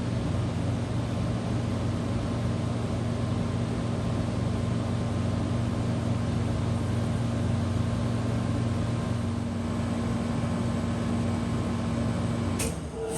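1993 Comfort-Aire window heat pump running in heat mode: a steady hum of compressor and fan with an even tone over a whoosh of air. Near the end it cuts off abruptly as the unit shuts down, and a high hiss of refrigerant starts as the pressures begin to equalize.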